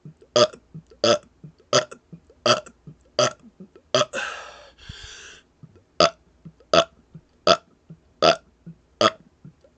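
A man burping deliberately in rapid succession, one short burp about every three-quarters of a second, about ten in all. A little before halfway the run breaks for about a second and a half, filled by two short noisy rushes of air.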